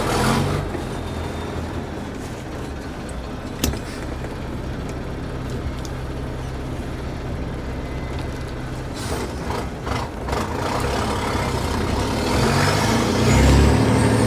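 Off-road vehicle's engine pulling steadily at low revs during an attempt on a climb, with a single sharp knock about three and a half seconds in. Near the end the engine revs up and gets louder, with a high whine rising in pitch.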